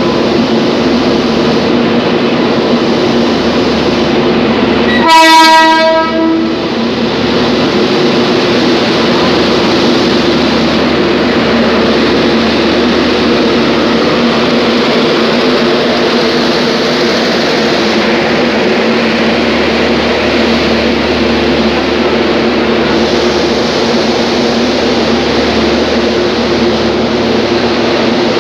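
Trains rolling along the platform tracks: a steady rumble of wagons and wheels on rails with a low steady hum. About five seconds in, a train horn sounds once, a loud blast of about a second.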